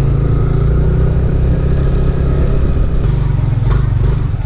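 Yamaha NMAX scooter's single-cylinder engine running steadily under way, with road and wind noise. About three seconds in it eases into a slower, pulsing beat as the scooter slows down.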